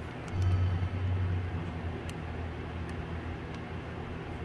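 A steady low rumble, louder for about a second shortly after the start, with a couple of faint ticks.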